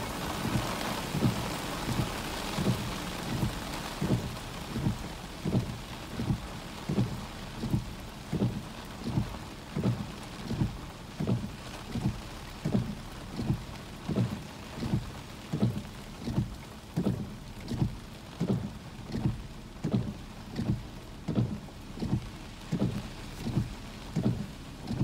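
Windshield wipers sweeping back and forth in a steady rhythm, thumping with each stroke, while rain hisses on the car. The rain is heavy at first and eases after the first few seconds.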